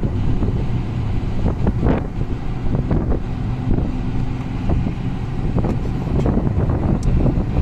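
Car driving, heard from inside: a steady low road and engine rumble with wind noise, and a few brief knocks from the road surface.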